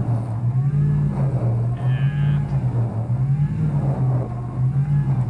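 The Ram TRX's supercharged 6.2-litre V8 is held at full throttle, its note rising and falling over and over as traction control cuts power to the spinning wheels. A brief higher whine comes in about two seconds in.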